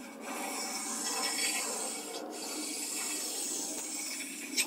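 Fine diamond hone stone rubbed back and forth along the ground ways of a CJ0618 7x12 mini lathe bed, dressing off nicks and burrs. It makes a steady scraping hiss in two long strokes of about two seconds each, with a short knock near the end.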